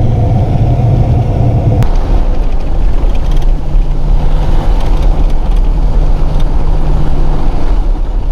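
Pickup truck driving fast on a dirt road, heard from inside the cab: the engine runs steadily under a constant rumble of tyre and road noise. About two seconds in there is a click and the engine note drops, then holds steady.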